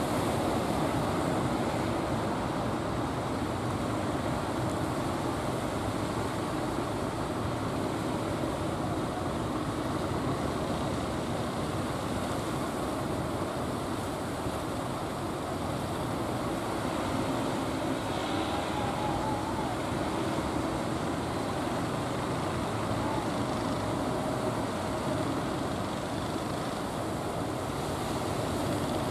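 Steady rumble of a fishing boat's engine running, mixed with the wash of choppy water.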